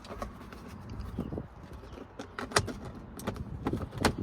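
A few sharp plastic clicks and knocks from the Saturn Sky's cup holder and storage compartment being handled, most of them in the second half, over a low rumble of wind on the microphone.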